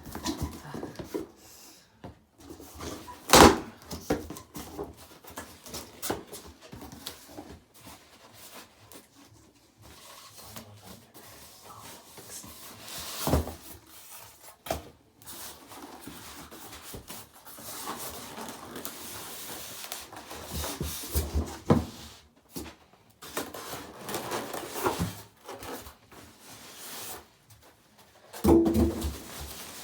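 Cardboard box and plastic packaging being handled and opened: irregular knocks, rustling and scraping, with a louder bump near the end.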